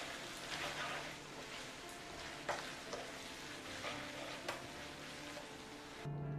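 Fettuccine and shrimp sizzling in a hot frying pan as they are stirred and tossed with a utensil, with a couple of sharp knocks of the utensil against the pan. The sizzling cuts off suddenly shortly before the end.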